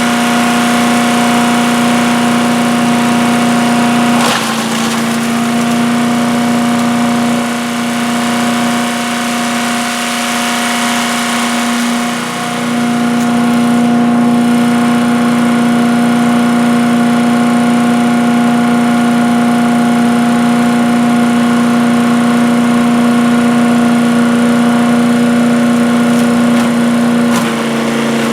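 Earthquake 212 cc chipper-shredder running steadily at high speed with its single-cylinder engine, while it grinds material fed into it. There is a sharp knock about four seconds in. The engine note sags under load for several seconds and then recovers, and it shifts again near the end.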